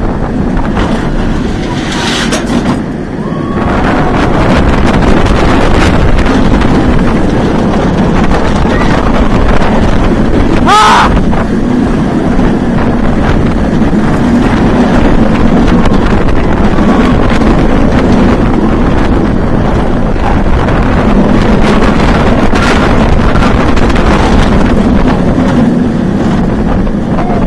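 Steel inverted roller coaster train running at speed on its track, a loud steady rush of wind on the microphone mixed with the roar of the wheels, building louder about four seconds in. A rider's brief yell rises and falls about eleven seconds in.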